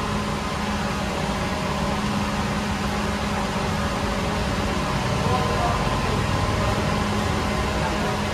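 Steady noise and low hum of bakery equipment running, unchanging throughout.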